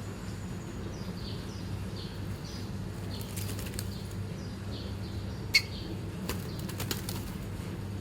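A sun conure's wings flapping and rustling as it moves about, with scattered clicks and one sharp loud click about five and a half seconds in. Faint short high chirps repeat about twice a second over a steady low hum.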